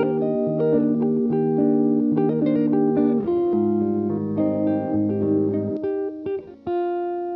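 Instrumental background music: a melody of separate plucked notes over a lower line, dropping out briefly near the end before one held note.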